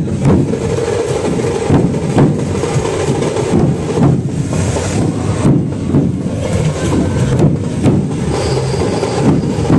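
A troupe of large dhol drums played together with sticks: a loud, dense, heavy pounding with strong accented beats coming at a steady rhythm, a little more often than once a second.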